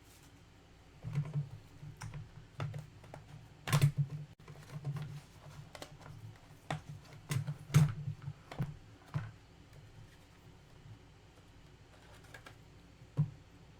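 Irregular keyboard clacks with soft low thuds under them, in quick runs for most of the first nine seconds, then one more isolated click near the end.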